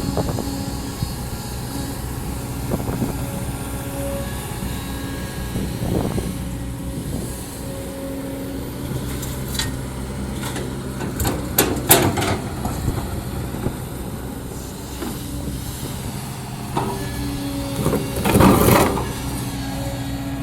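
Kobelco SK200-10 hydraulic excavator working, its Hino diesel running steadily under load while the bucket scrapes and knocks against rock. There are short clattering scrapes through the middle, and the loudest grinding scrape lasts about a second near the end.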